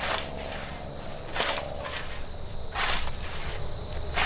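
A scythe swishing through grass in even strokes, about one every second and a half, four in all, over a steady high insect chorus.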